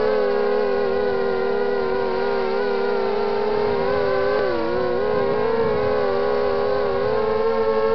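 Four Emax 2300kv brushless motors of a QAV250-clone FPV quadcopter whining in flight, several close pitches beating together and wavering as the throttle shifts, with a short dip in pitch about four and a half seconds in.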